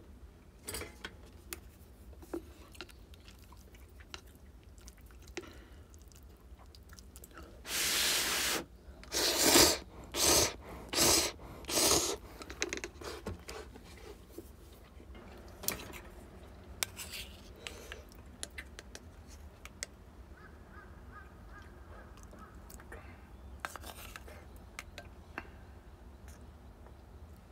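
A person eating: scattered chewing and small clicks, with a run of five loud slurps about a third of the way in.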